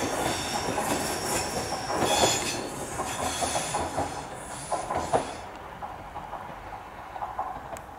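Class 323 electric multiple unit pulling away round a curve, its wheels squealing high over the rumble and clatter of the running gear. The squeal and clatter stop about five seconds in, and the train fades as it moves off.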